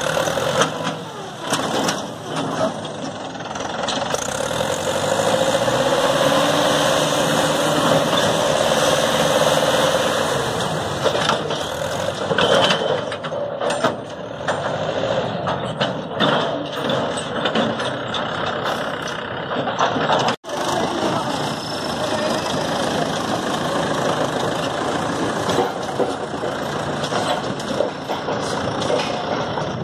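Mahindra tractor's diesel engine running under load as it hauls a loaded trolley over muddy ground, its revs rising for a few seconds early on and then holding.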